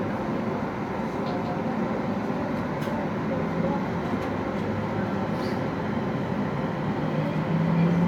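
JR 701 series electric train starting off and slowly gathering speed, heard from inside at the front: a steady running rumble of wheels and traction motors. A low hum grows louder near the end.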